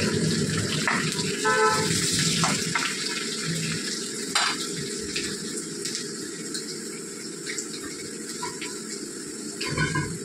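Sliced onions frying in oil and ghee in a wok: a steady sizzle that slowly fades. There are a few sharp clicks of the spatula against the pan in the first half.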